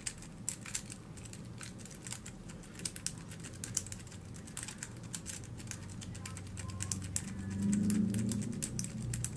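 Rapid, irregular metallic clicking and scraping of a Sparrows Worm rake pick being raked in and out across the pin stack of a Fortress padlock under tension wrench pressure. A low hum swells about eight seconds in.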